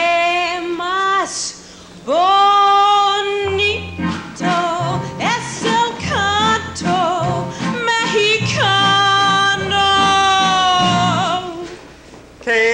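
A singer in a stage musical number holding long notes that swoop up into pitch, with a wavering note near the end, over an instrumental accompaniment with a stepping bass line.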